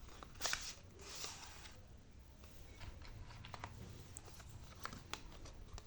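Faint rustling and scattered light clicks of a cardboard box and its packaging being handled as accessories are taken out, with a short rustle about half a second in and another after about a second.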